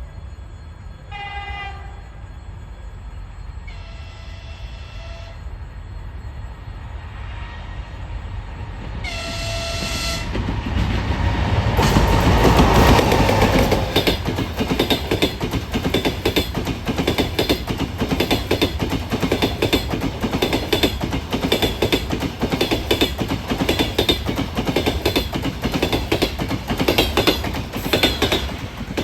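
Three short horn blasts from an approaching EP20 electric locomotive, then the locomotive and its double-deck passenger cars pass close by, wheels knocking rapidly and loudly over the rail joints.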